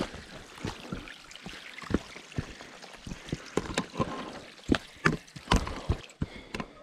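Footsteps climbing over rock and loose slate, boots knocking and scraping on stone at an uneven pace, with a steady low hiss underneath.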